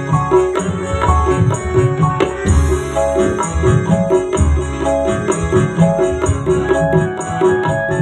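Dangdut band music playing steadily: keyboard melody over an even drum beat with a jingling high percussion part.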